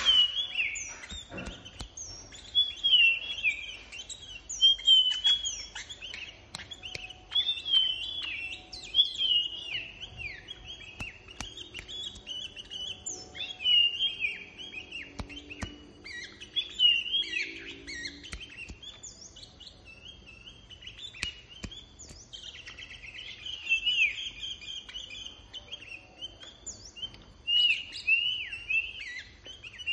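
Caged bulbul singing repeated short, chirpy whistled phrases, with a lull of a few seconds in the middle.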